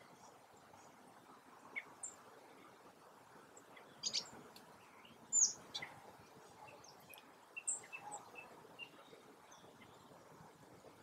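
Small woodland birds calling in short scattered chirps and thin high notes, busiest from about four to nine seconds in, over a steady background noise.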